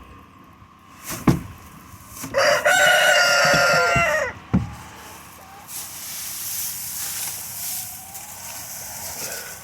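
A rooster crowing once, a single call of about two seconds, preceded by a few sharp knocks. A steady high hiss follows in the second half.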